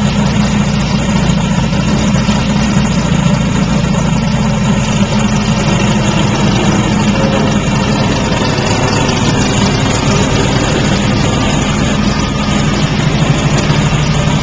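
1835 cc air-cooled Volkswagen flat-four with a blow-through turbo, running steadily at idle while it is being tuned.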